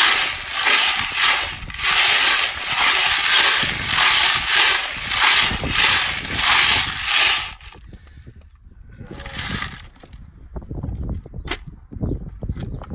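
9mm brass casings and stainless steel tumbling pins rattling and clattering inside a hand-turned rotary media separator drum, in surges about twice a second as the drum turns, shaking the pins out of the cases. The rattling stops about two-thirds of the way through, leaving scattered small metallic clinks.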